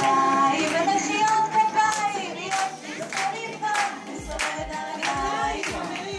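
Upbeat song with singing playing, with hands clapping along; a low steady drum beat comes in about four seconds in.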